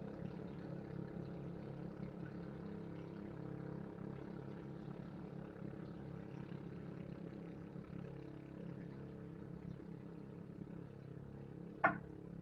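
A small engine running steadily, with an even hum. A brief sharp sound comes near the end.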